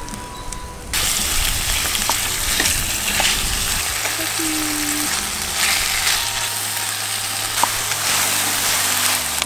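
Sliced chicken, broccoli and mushrooms sizzling in a hot frying pan on a camp stove, stirred with a wooden spatula. The sizzle comes in suddenly about a second in and holds steady.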